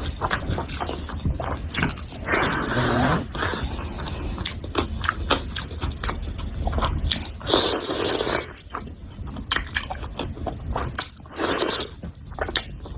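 Close-miked eating: wet chewing and lip-smacking on a mouthful of curry and rice, with irregular clicks and scraping sounds.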